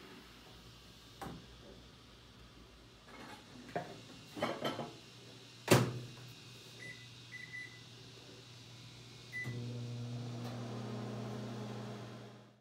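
Microwave oven being started: several knocks and a sharp clack of the door shutting, a few short keypad beeps, then the oven's steady electric hum starts about three-quarters of the way in and runs on.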